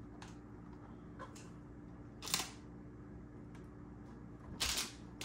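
A knobby dirt bike tire being turned and handled by hand: a few short scuffs and rustles of rubber, one sharp one about two seconds in and the loudest just before the end, over a faint steady hum.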